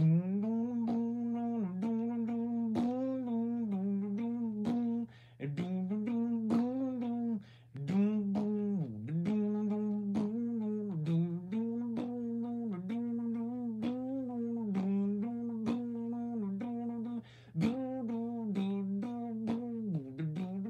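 A person humming a tune in phrases of held and stepping notes, with frequent sharp clicks running along with it.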